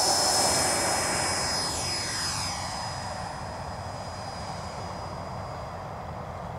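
Electric ducted fan of a Freewing Avanti 80 mm RC jet running steadily: a high whine over rushing air. It sweeps and fades as the jet lifts off and climbs away.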